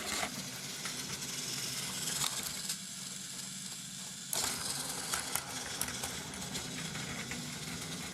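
Battery-powered Plarail toy train running along plastic track: a small electric motor whirring, with light clicks from the wheels and track joints. It goes briefly quieter about three seconds in.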